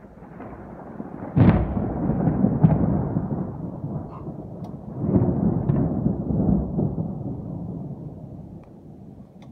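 Thunder: a sharp crack about a second and a half in, then a rolling rumble that swells again around five seconds and dies away.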